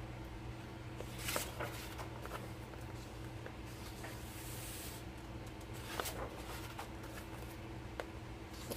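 Pages of a large paperback coloring book being turned by hand: a few brief, soft paper rustles and slides over a steady low hum.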